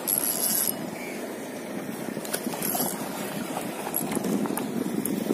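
Spinning reel being cranked to bring a hooked fish in to the rocks, against a steady wash of water. A short high rasp comes at the start and another near the middle.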